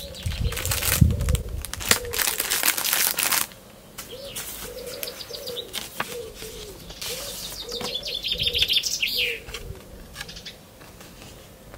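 Birds cooing over and over in short low calls, with two loud spells of flapping wings, one in the first few seconds and another about seven seconds in.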